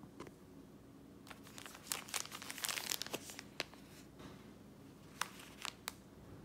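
Plastic sachets of steam eye masks crinkling as they are picked up and handled: a run of crinkling in the first half, then three short sharp crackles about five seconds in.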